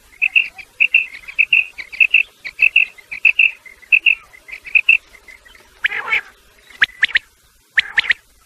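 Quail calling: a quick run of short, high notes in pairs, about two to three a second, for some five seconds, then a few harsher, raspier calls and sharp chips.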